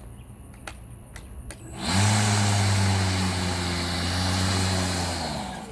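Milwaukee battery-powered lawn mower switched on after a few light clicks: its motor and blade spin up to a steady hum for about three seconds, then wind down and stop on their own. The shut-off is a fault that the owner traces to a loose power button.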